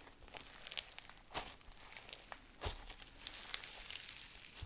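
Floam fizz slime, micro floam beads mixed with snow fizz, squeezed and stretched by hand, giving a run of fine crunchy crackles with a few sharper pops.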